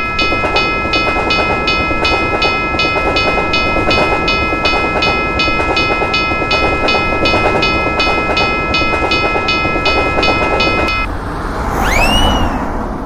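Railroad crossing bell ringing in a steady rhythm, about three strikes a second, over the rumble of a passing train. The bell stops about eleven seconds in, and a short tone rising and falling in pitch follows near the end.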